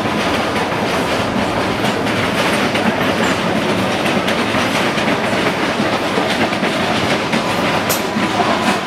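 Suburban train running on the tracks: a steady noise of wheels on rail.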